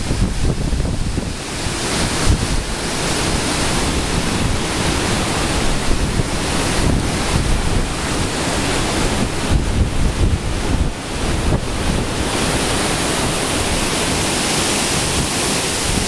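Storm wind gusting through the trees and buffeting the microphone: a continuous rushing with rough low rumbles. The high rush grows stronger in the last few seconds.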